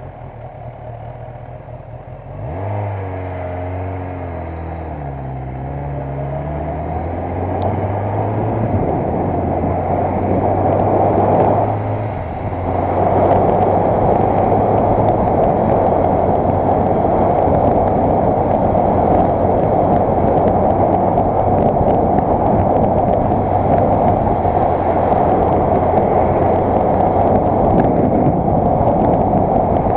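Motorcycle engine pulling away and rising in pitch through several upshifts, then settling into a steady cruise. From about 13 seconds in, a loud, steady rush of wind on the microphone covers it.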